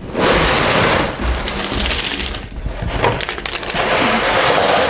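Loud crinkling and crunching as hands dig through the opened box, which holds chips instead of a keyboard, in two long stretches with a brief lull in the middle.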